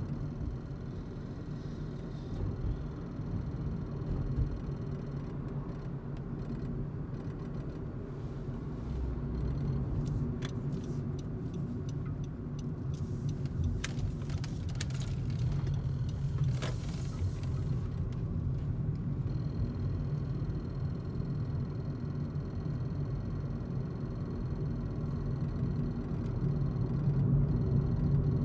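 A 10th-generation Honda Civic running, a steady low rumble, with a few sharp clicks and a short hiss around the middle.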